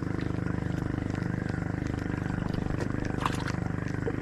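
Small boat engine running steadily at an even speed, with a light click about three seconds in.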